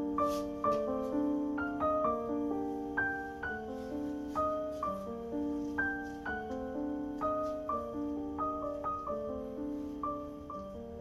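Background solo piano music: a slow, gentle melody with notes struck about twice a second over held low chords.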